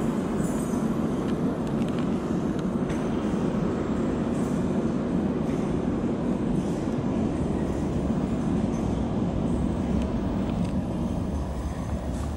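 Steady rumble of a not-in-service MTR train running through an underground station, easing off slightly near the end.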